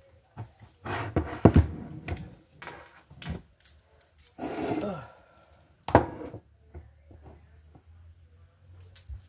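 A person eating: a utensil knocking and scraping in a takeout bowl, with sharp clicks about a second and a half in and again about six seconds in. Chewing and mouth sounds fill the gaps.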